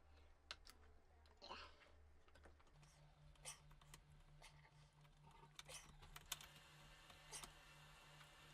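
Faint, scattered small clicks and light handling noises of laptop plastic parts being fitted by hand, over a faint low hum.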